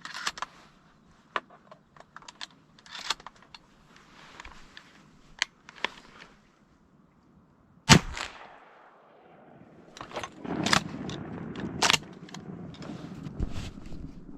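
One shotgun shot about eight seconds in, sharp and much the loudest sound, with a short echo trailing off. Before it come small scattered clicks and rattles of gear handling; after it, rustling with a few knocks.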